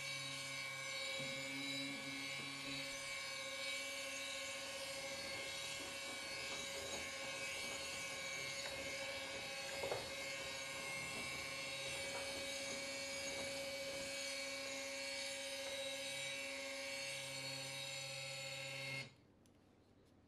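Bolt stick blender running on its high setting in a bucket of cold-process soap batter, blending the oils and lye toward trace: a steady motor whine whose lower hum shifts as the head is moved through the batter, with a light knock about halfway. It switches off suddenly about a second before the end.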